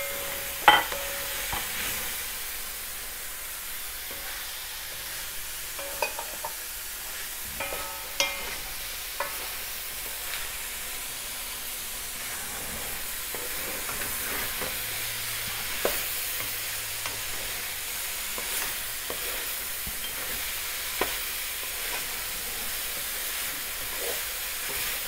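Asparagus, bell peppers, onions and mushrooms sizzling as they sauté in a metal pot, stirred with a wooden spatula. A steady hiss runs throughout, with a few sharp knocks of the spatula against the pot.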